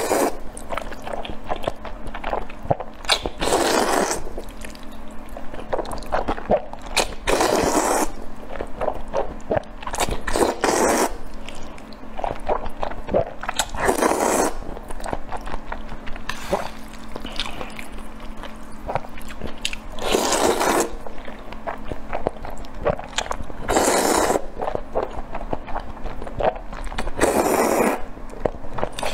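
A person slurping up mouthfuls of saucy noodles in about seven long slurps, three to four seconds apart, with wet chewing and lip-smacking clicks between them.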